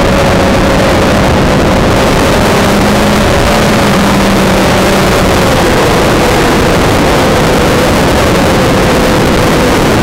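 Multirotor drone's motors and propellers whining loudly, recorded by its own on-board camera, over a rushing of air. The whine holds a steady pitch that wavers slightly as the drone flies.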